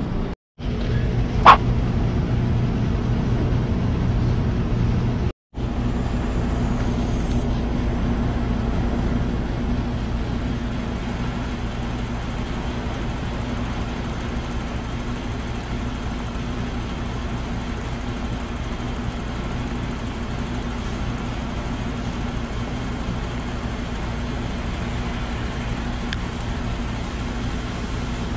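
Diesel running from a filling-station dispenser nozzle into a truck's fuel tank, over a steady low mechanical hum. A single sharp click sounds about a second and a half in.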